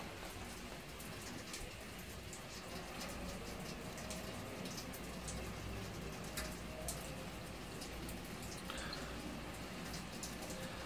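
Steady rain with scattered sharp drop ticks close to the microphone.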